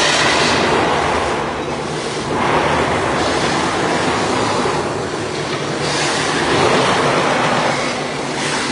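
Large metal-spinning lathe turning a sheet-steel satellite dish, making a loud, continuous rumbling scrape that swells and fades about every three seconds.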